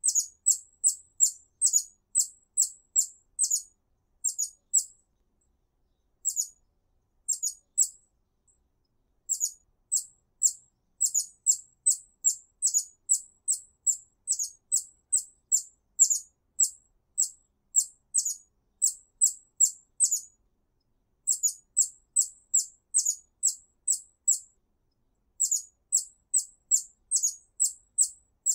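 Hummingbird giving sharp, very high chip notes, about two a second, in runs broken by a few short pauses.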